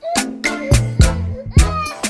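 Background music with a drum beat and a bass line.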